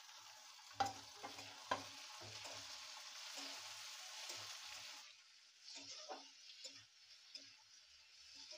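Sliced onion and capsicum sizzling in hot oil in a metal karahi as they are stir-fried, with a metal spatula scraping and knocking against the pan. There are two sharp knocks in the first two seconds, and the sizzle eases after about five seconds.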